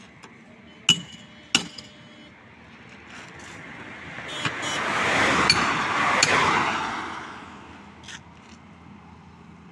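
A steel tyre lever and hammer clink twice against a truck's steel wheel rim about a second in, ringing briefly, as a punctured tyre is worked off the rim by hand. Mid-way, a passing vehicle's noise swells and fades over about four seconds and is the loudest sound.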